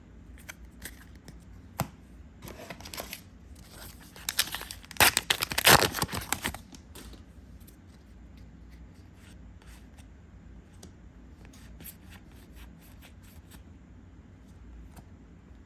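A trading-card booster pack's foil wrapper being torn open and crinkled, loudest from about four to six and a half seconds in. Scattered soft clicks of cards being handled come before and after.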